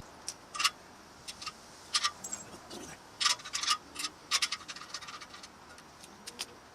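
Small metal parts, nuts and washers, clicking and clinking as they are handled and set down on a hard surface. The sharp ticks come irregularly, some single and some in quick clusters.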